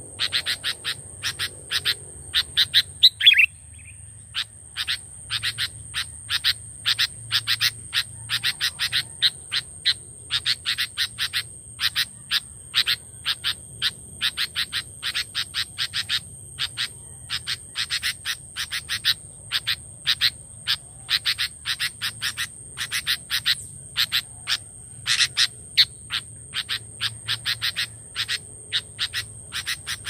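Songbird chirping: sooty-headed bulbul and prinia calls, a fast, even series of short sharp chirps at about three a second, with one brief upswept note near the start. A faint steady high whine sits behind them.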